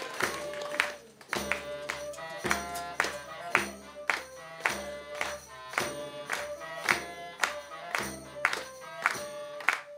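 Medieval-style music: steady percussion strikes, about two a second, under a sustained melody line. The music dips briefly about a second in.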